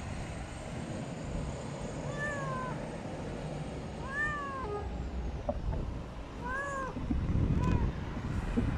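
Tabby cat meowing at close range: three short meows about two seconds apart, each rising then falling in pitch, and a shorter, fainter one near the end, over a low rumble that grows louder near the end.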